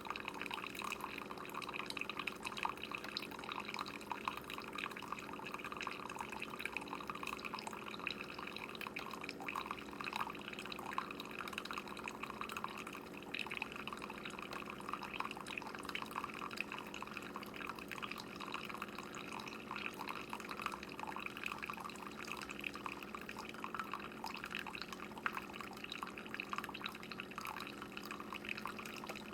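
Keurig single-serve coffee maker brewing: coffee trickling and dripping into a cup over a steady low hum from the machine.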